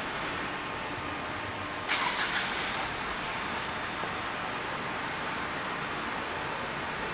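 Steady mechanical background noise of a vehicle inspection hall, with a short run of sharp knocks about two seconds in.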